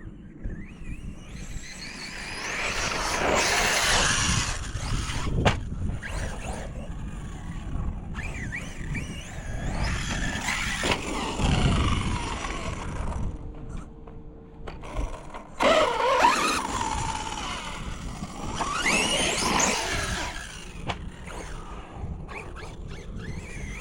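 Arrma Fireteam RC car's brushless electric motor whining up and down in pitch through several bursts of acceleration, with tyre and running-gear noise. There is a sharp knock about five seconds in.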